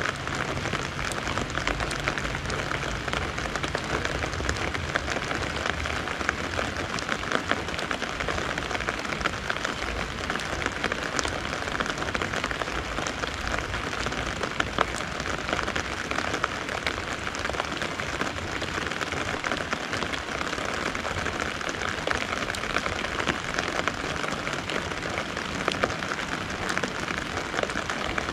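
Steady rain falling, with a dense patter of individual drops ticking on the fabric umbrella overhead. The level stays even throughout.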